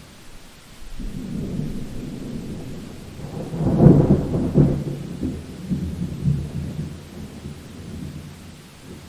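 A thunderclap rolling over steady rain. The rumble builds from about a second in, is loudest around four seconds, then rolls on and fades away near the end.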